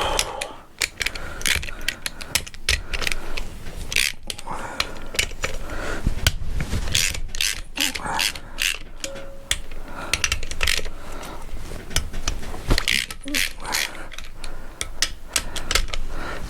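Ratchet spanner clicking in repeated runs of strokes as bolts are undone during an engine strip-down.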